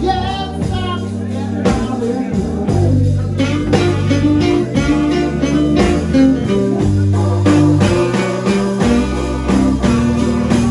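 Live slow blues band playing: electric guitar fills over bass and drums, between sung lines.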